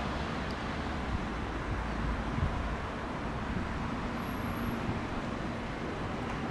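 Steady low rumble and hiss of railway station background noise as an ÖBB electric multiple unit approaches slowly in the distance, with a faint steady hum.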